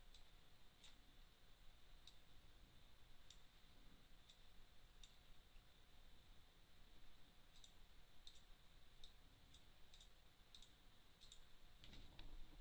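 Near silence with faint computer mouse clicks, about a dozen spaced irregularly, over a low steady hiss.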